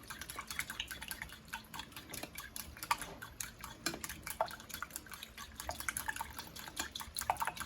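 A utensil stirring a dry seasoned flour-and-cornstarch mix in a bowl, with many light, irregular clicks against the bowl.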